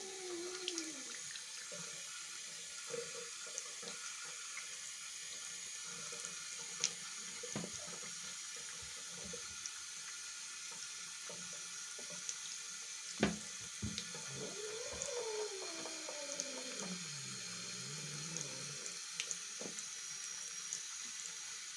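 Faucet running into a sink basin: a steady splashing hiss. A sharp knock comes a little past halfway, and soon after the kitten gives one long falling mew.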